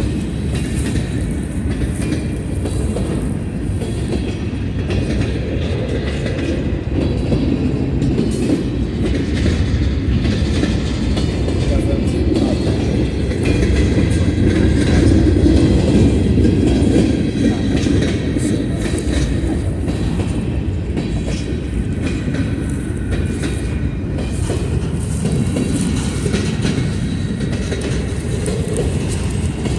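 Union Pacific local freight train rolling past, its wheels clicking and clattering over the rails with a continuous low rumble that swells a little midway.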